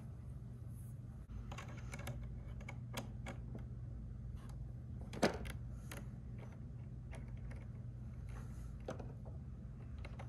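Scattered light clicks and taps of hands handling clear acrylic alignment gauge plates against an RC truck's front suspension, with one sharper click about five seconds in, over a steady low hum.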